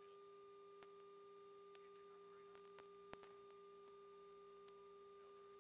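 Near silence: a faint, steady hum of two constant tones, one low and one higher, with a single faint click about three seconds in.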